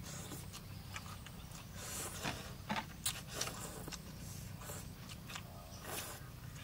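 Several people slurping noodles and chewing, in short wet slurps, with small clicks of chopsticks against porcelain bowls.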